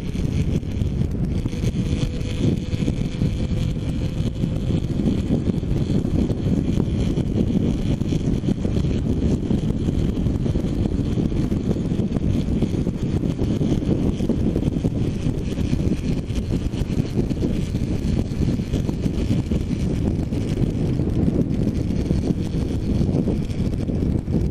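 Heavy wind buffeting on a helmet-mounted GoPro's microphone at road speed on a motorcycle, a steady low rumble of noise, with a faint tone rising slightly over the first few seconds.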